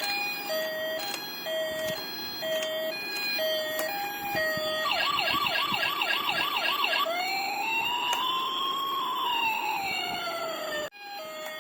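Electronic siren of a toy RC police car cycling through its tones: a hi-lo two-tone for the first few seconds, then a fast repeating yelp, then a slow wail that rises and falls. It cuts off abruptly near the end and the two-tone starts again, over a steady low noise.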